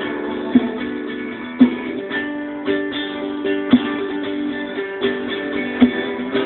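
Instrumental passage of a sertanejo song: guitars playing sustained notes over a steady beat, with a sharp percussion hit about once a second.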